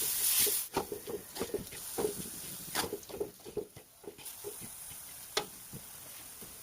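Light, irregular clicks and taps of a spatula stirring in a pan, over a faint hiss.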